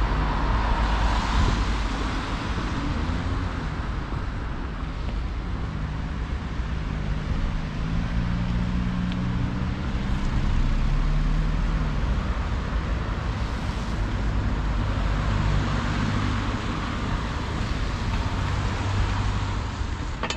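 Street traffic: cars driving by with engine hum and tyre noise, one engine's hum rising and falling about halfway through.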